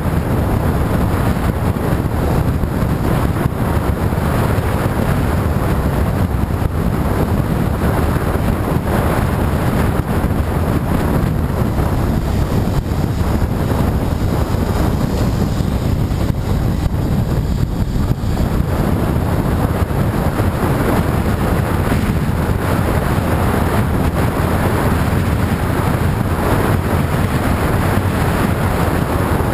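Wind rushing over the microphone of a camera on a moving motorcycle, a steady heavy low rumble, with the motorcycle's running and road noise blended beneath it.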